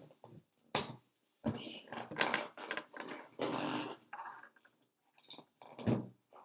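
Handling noise: rustling bursts with a few sharp clicks and a low thump near the end, as a person moves about and handles a phone.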